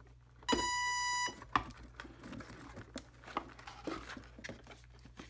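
A single steady beep, just under a second long, about half a second in: the electric speed controller's power-up tone as the 2-cell battery is plugged in. Scattered clicks and handling noise from the battery connector and the plane's fuselage follow.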